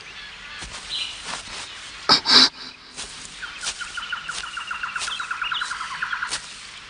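Cartoon forest ambience: steady footsteps on grass, about one step every 0.7 seconds, with birdsong over them. A short, sharp bird call comes about two seconds in, and a fast, even trill runs for about three seconds in the second half.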